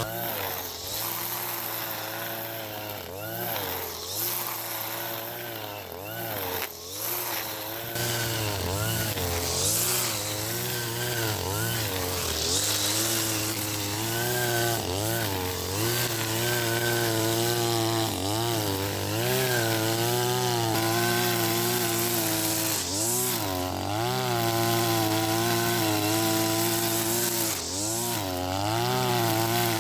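Husqvarna 542RBS 42cc two-stroke brush cutter running hard with 2.4 mm square trimmer line cutting grass. Its engine pitch dips and recovers many times as the line takes load.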